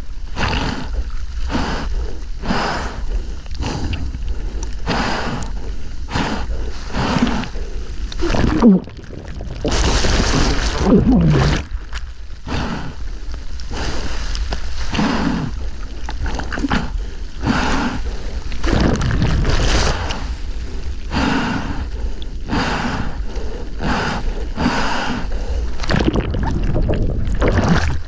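A surfer paddling a surfboard through rough water, arm strokes splashing about once a second, with a longer, louder rush of water about ten seconds in.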